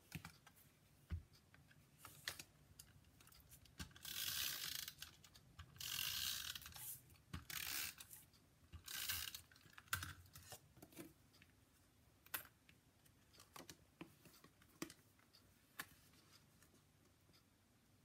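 Paper and cardstock being handled on a craft table: four short scraping swishes of paper between about four and ten seconds in, with scattered light taps and clicks.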